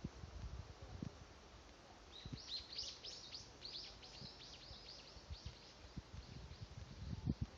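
A small bird singing a run of quick, high, downward-sweeping notes, about three or four a second. The song starts about two seconds in and fades out near the end, over faint low knocks.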